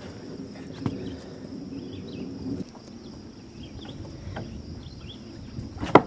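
A floating wooden platform being hauled in across a pond by rope. There is a low rubbing, sloshing noise, a few knocks, and one sharp knock near the end as the platform meets the dock. Faint bird chirps and a steady insect hum sound behind.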